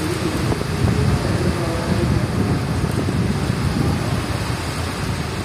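Rainstorm with gusting wind: steady rain hiss, with wind buffeting the microphone in a low rumble.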